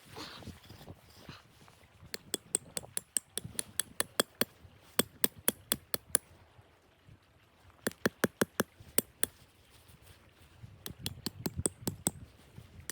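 Rapid sharp clicks or taps, about four or five a second, in three bursts separated by short pauses.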